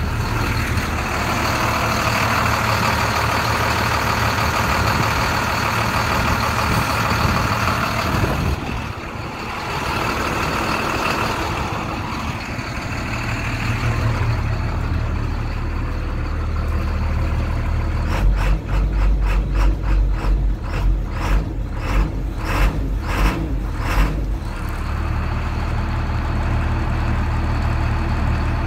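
IC school bus diesel engine idling steadily. A rushing noise of air runs through the first several seconds, and past the middle comes a run of about a dozen sharp thumps, roughly two a second.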